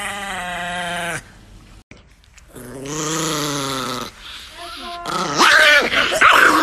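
Small dogs growling: a held growl at the start, a second, longer growl after a short gap, and a loud, rough outburst near the end.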